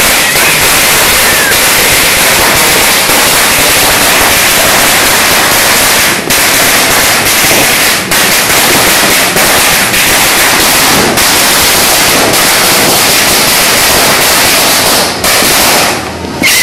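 A sawa, a long Filipino firecracker string, going off in a loud, unbroken rapid-fire crackle of bangs that thins out and stops near the end.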